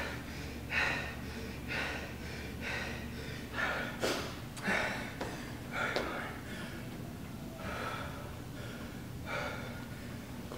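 A man panting hard, out of breath from intense exercise, about one heavy breath a second, with a couple of light clicks in between.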